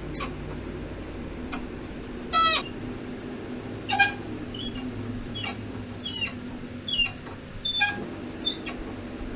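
Repeated short, sharp squeaks of metal on metal, about one a second, as a heated, rust-seized pin is twisted out with water-pump pliers. A steady workshop hum runs underneath.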